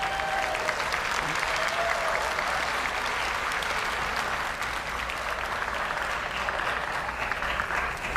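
Audience applauding, a steady run of many hands clapping.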